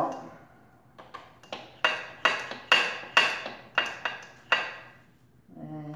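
About ten sharp metal-on-metal taps with a ringing tail, two or three a second, stopping about four and a half seconds in: the rear shock's steel mounting bolt being tapped partway out of the shock mount.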